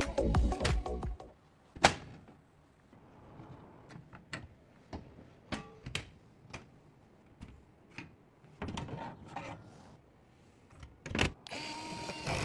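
Scattered small clicks and knocks of computer hardware being handled and fitted together, with a brief whirring stretch near the end.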